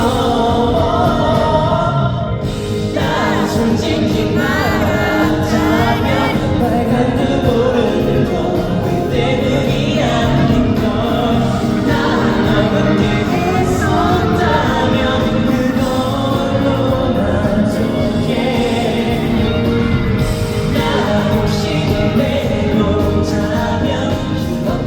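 Live pop song: a male lead vocal sung over full band accompaniment.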